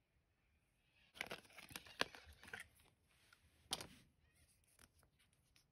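Small clicks and rustling from handling watch parts and tools: a cluster of light clicks and rustles lasting about a second and a half, then one sharp click, and a few faint ticks near the end.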